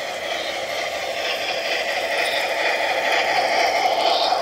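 Märklin BR06 model steam locomotive and its coaches running fast on the track: a steady whir and rattle of motor and wheels on rails, growing louder as the train comes close.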